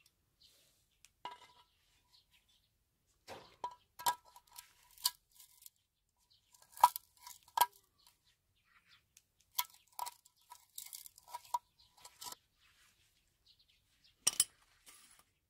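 Steel pliers clinking against metal: about a dozen sharp metallic clicks at irregular intervals, each with a brief ring. The loudest come a little before halfway and near the end.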